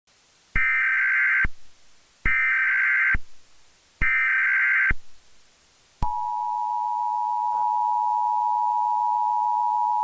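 Emergency Alert System SAME header: three bursts of digital data tones, each about a second long. About six seconds in, the steady two-tone EAS attention signal starts and holds.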